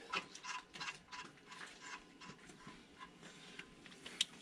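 Faint, irregular small clicks and taps of a nut and bolt being fitted by hand on a transmission mount, with one sharper click near the end.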